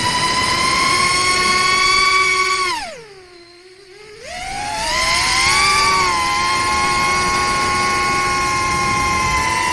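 FPV quadcopter's brushless motors and propellers whining at a steady high pitch. The throttle is chopped about three seconds in, so the whine falls away almost to nothing, then punched back about a second later, the motors spooling up at slightly different pitches before settling again.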